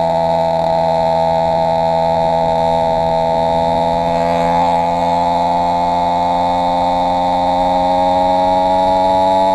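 Two-stroke motorized-bicycle kit engine, with an AF80 crank and a 49 mm cylinder, running steadily under way. Its engine note dips slightly in pitch about halfway through, then rises gently near the end. It is running on two stacked base gaskets to raise the transfer ports, which the owner found cost it power.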